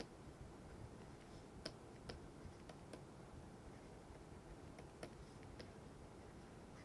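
Faint, scattered clicks of a stylus tapping on a tablet's writing surface as words are handwritten, over near-silent room tone.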